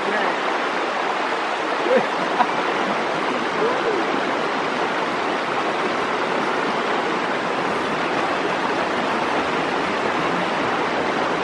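Shallow river rushing and splashing over rocks in small rapids, a steady, even rush of water.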